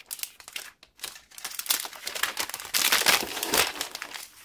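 Plastic protective wrap on a tablet crinkling and rustling unevenly as the device is handled and lifted out of its box, loudest about three seconds in.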